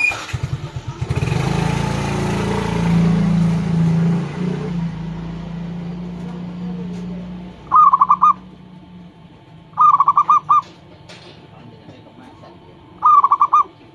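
Zebra dove (perkutut) cooing: three short bursts of rapid, rolling notes in the second half, each under a second and a few seconds apart. Before them a loud low drone with a hiss dies away over the first half.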